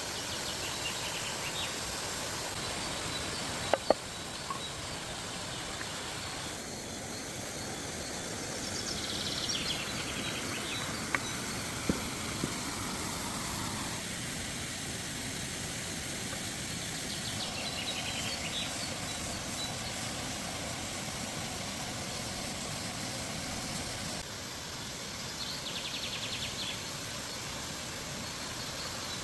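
Steady rush of a waterfall, with a few sharp knocks and short high chirping trills now and then.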